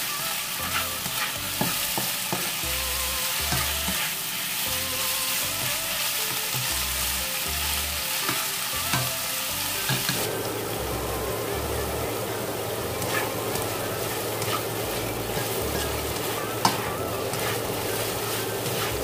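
Pork pieces frying in a pan with a little vegetable oil, sizzling steadily as they brown, with scattered clicks of a utensil stirring them against the pan.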